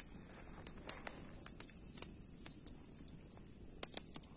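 Night insects, crickets, chirping steadily in a high pitch, with scattered sharp clicks and snaps throughout.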